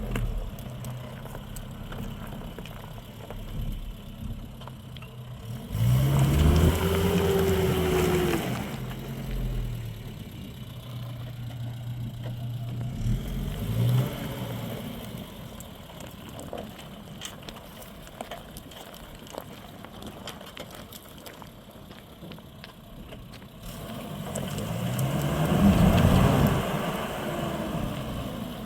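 A motor vehicle's engine running, swelling louder twice, about six seconds in and again near the end, its pitch rising and then falling each time.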